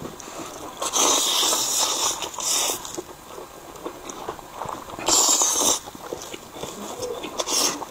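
A man slurping fried noodles in a dark sauce, with several long, loud sucking slurps and wet chewing in between.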